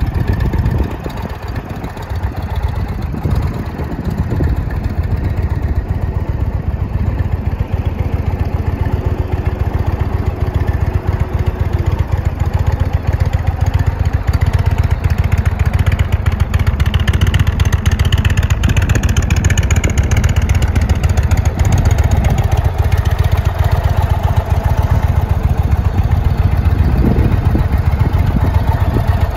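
Indian Chieftain Limited's Thunder Stroke 116 V-twin idling steadily.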